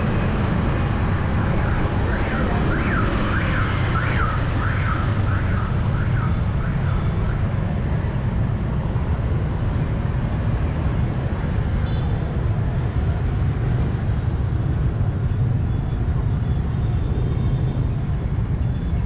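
City street traffic running as a steady hum. From about two seconds in until about seven seconds in, a repeating rising-and-falling chirp sounds over it, about two a second.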